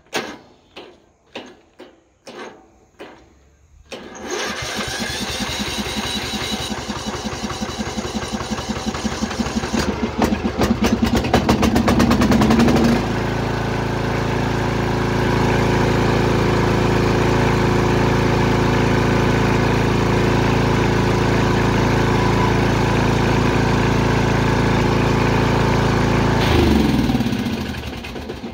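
Lawn mower engine cranking over in several strokes, catching about four seconds in and speeding up, then settling into a steady run before it stalls and winds down near the end. The long-stored engine will start but won't keep running, a fault the owner cannot trace.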